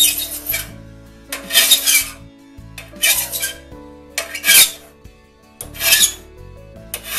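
Steel file rasping in slow, even strokes across a raker tooth of a one-man crosscut saw, riding on a hardened depth gauge, about one stroke every second and a half. The raker is being dressed down to set its depth just below the cutting teeth.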